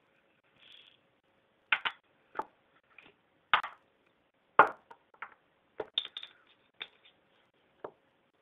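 Sugar being spooned from a china sugar bowl into a tall drinking glass: about a dozen short clinks and knocks of the spoon against china and glass, the loudest a little past halfway. Near the end a glass coffee jar is set down on the table with a knock.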